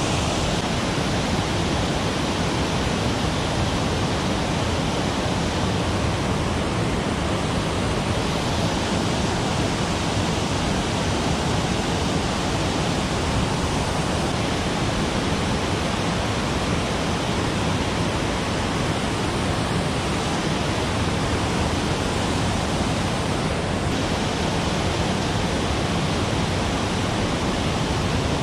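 Water spilling over a low concrete weir on a mountain stream: a steady, unbroken rushing noise.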